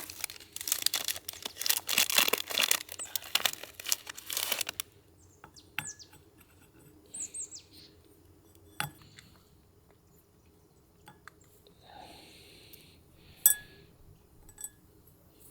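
Crinkling and rustling for about five seconds, then a few scattered sharp clicks and faint short high chirps.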